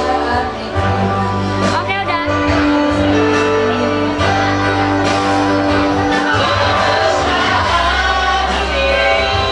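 Music with singing over instrumental backing and a steady bass line, the notes held and moving in a melody.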